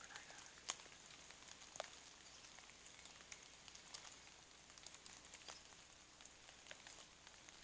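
Light rain: a faint hiss with scattered sharp ticks of single drops, two louder ones in the first two seconds.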